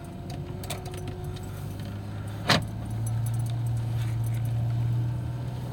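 Metal tags on dog collars jingling in scattered small clicks as the dogs move about, with one sharper click about two and a half seconds in, over a steady low hum that grows louder about three seconds in.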